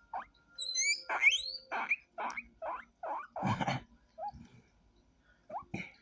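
A small pet animal, apparently a rodent, squeaking: a few high rising whistles, then a quick string of short squeaks about twice a second, and two more squeaks near the end.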